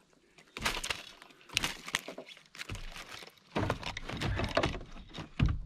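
Irregular knocks, clatter and rattles of a landing net and fishing gear being handled against a kayak as a netted fish is brought aboard, with a louder thump near the end.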